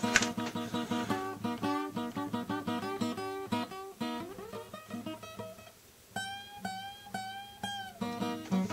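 Background music: a plucked guitar playing quick runs of notes, then a few held notes bent up and down in pitch about six seconds in.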